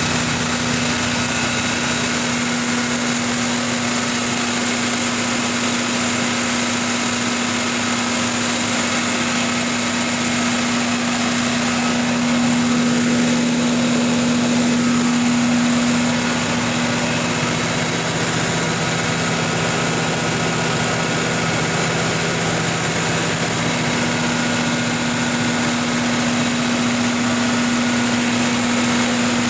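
Kohler 1000 kW diesel generator set's MTU 16V2000 V16 engine running steadily, a constant low hum with a steady high-pitched whine over it. It gets slightly quieter about sixteen seconds in.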